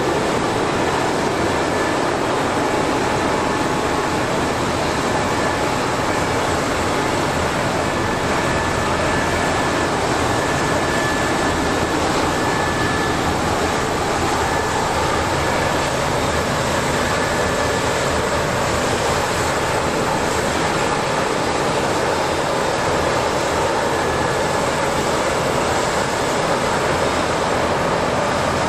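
LCAC air-cushion landing craft running on its cushion: a loud, steady roar of its gas turbines, lift fans and two ducted propellers, with a faint high whine held steady over it.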